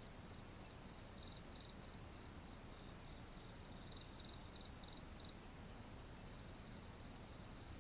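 Crickets chirring steadily and faintly, with louder pulsed chirps in the same pitch: two about a second in, then a run of five around four to five seconds in.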